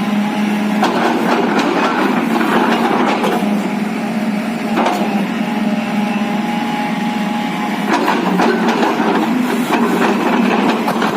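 JCB JS215 tracked excavator's diesel engine running steadily, with bursts of knocks and scrapes from the bucket and arm as it digs.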